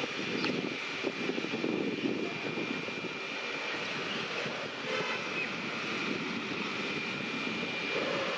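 WAP-7 electric locomotive and its passenger train approaching on the track: a steady rumble with a thin, steady high whine.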